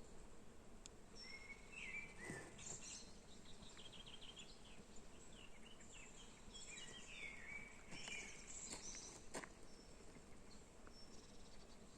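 Birds chirping and singing faintly over quiet outdoor background noise, with short high calls that come in clusters, the busiest about two seconds in and again from about six to nine seconds. Two sharp clicks sound near the nine-second mark.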